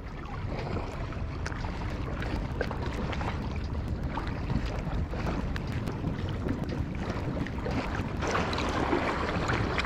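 Choppy bay water lapping and splashing close to the microphone, with wind rumbling on the microphone; a louder wash of water comes about eight seconds in.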